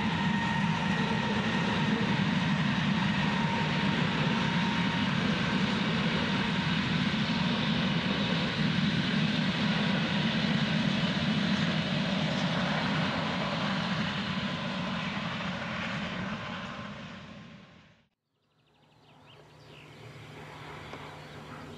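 ÖBB class 2143 diesel-hydraulic locomotive running steadily under power as it hauls a passenger train past, its engine noise fading away as the train draws off. After an abrupt cut near the end, only a faint steady low hum is left.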